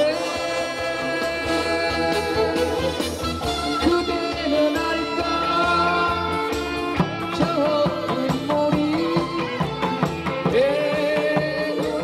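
Music playing: a melody with sliding, wavering notes over a steady accompaniment.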